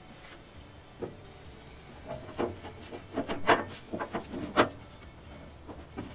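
Sheet-metal side panel of a Yoder YS640 pellet smoker's controller box being swung shut and pushed into place: a run of light metal knocks and scrapes, the two loudest about three and a half and four and a half seconds in.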